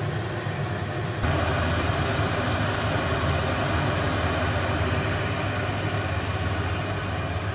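Brewing burner running under a pot of boiling wort: a steady rushing noise over a low hum, a little louder about a second in.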